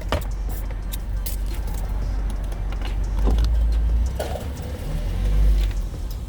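Car interior: a low, steady rumble from the car, swelling twice, with scattered small clicks and knocks from handling things in the cabin.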